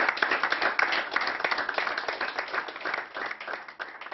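Audience applauding: many hands clapping, thinning out and dying away near the end.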